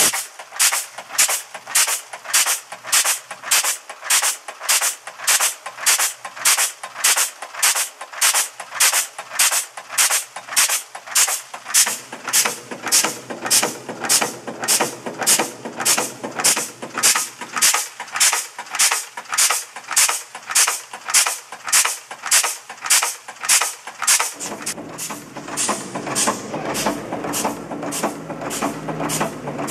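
Ayase Seiki AS-2D3 two-die, three-blow cold header running, its header slide and tooling clacking in a steady rhythm of about two strokes a second. A low machine hum under the strokes comes up about halfway through and grows louder near the end.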